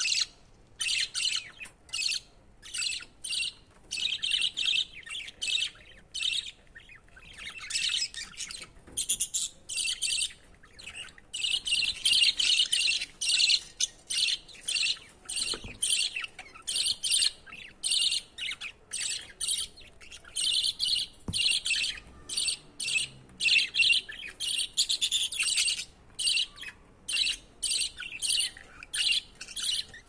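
Budgerigars chirping in rapid runs of short, high calls broken by brief pauses, busiest around the middle.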